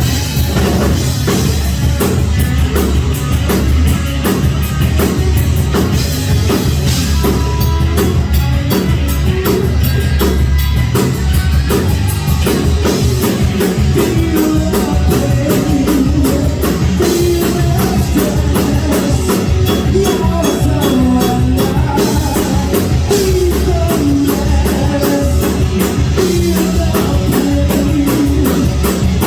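Rock band playing live and loud: a driving drum kit with guitars, and a wavering melodic line over the top in the second half.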